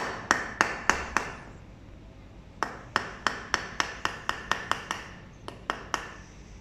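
A brass door lock cylinder is knocked repeatedly against a wooden block while a hairpin in its keyway holds turning pressure. Sharp, ringing knocks come about three to four a second: a handful, a short pause, then a dozen more. This is the jarring meant to free the pin tumblers so that the cylinder's cam can turn without its key.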